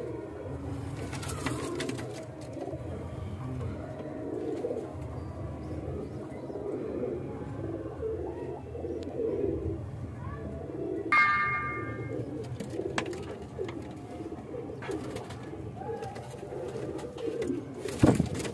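Domestic Andhra pigeons cooing continuously, several birds overlapping in a low murmur. A brief high-pitched tone sounds about eleven seconds in, and a sharp knock comes near the end.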